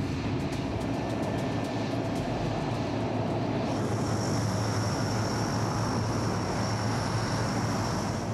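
Aircraft engines running on an airstrip: a steady low drone. From about four seconds in, the high, steady turbine whine of a Hercules turboprop cargo plane's engines, its propellers turning as it taxis.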